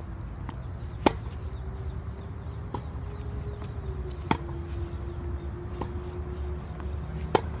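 Tennis rally: a tennis ball struck by a racket three times, sharp pops about three seconds apart, with fainter knocks of the ball between them. A steady low rumble and a faint even hum run underneath.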